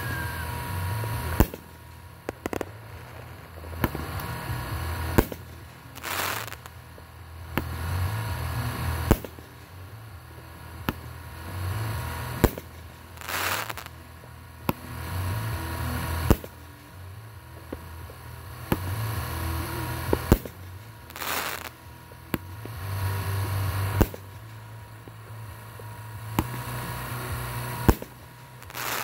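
Aerial firework shells bursting overhead: sharp booms every one to two seconds, with three longer noisy bursts of about half a second each, over a low rumble.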